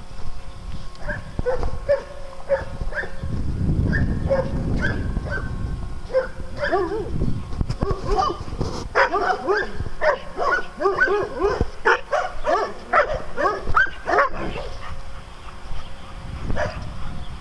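Dogs barking and yipping at play. The short barks come in a quick, dense run through the middle.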